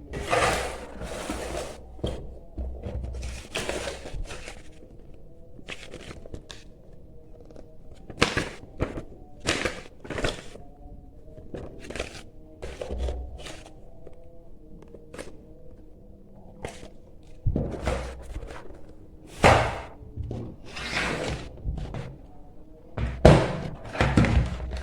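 Unboxing handling noises from a gaming keyboard's box and packaging: irregular thunks, knocks and short rustles as things are lifted, slid and set down, over quiet background music.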